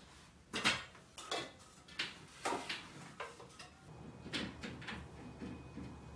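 Irregular knocks and clatters of light household objects being handled: a small glass-and-metal side table lifted and set down, then a horizontal venetian blind being adjusted, with its slats rattling.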